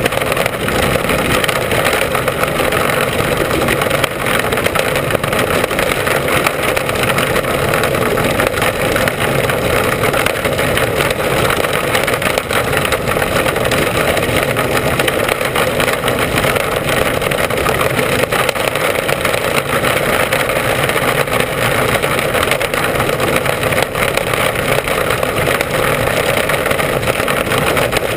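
Mini Sprint race car's engine running hard at racing speed, heard from an onboard camera as a loud, steady, dense noise.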